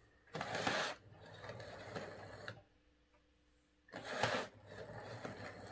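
The ringfield motor of a Hornby 00 gauge APT power car whirring as the model runs on the track at full power. It is barely running and in poor health. There are two short louder rushes of noise, about half a second and four seconds in, and the sound drops away for about a second in the middle.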